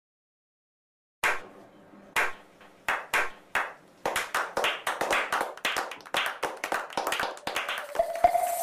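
A slow clap: after about a second of silence, single hand claps spaced widely apart, coming faster and closer together from about halfway in. A music tone enters near the end.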